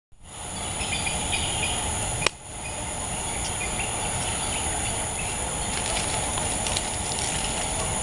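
Outdoor ambience of steady high-pitched insect song with scattered short bird chirps over a low rumble. A single sharp click sounds about two seconds in.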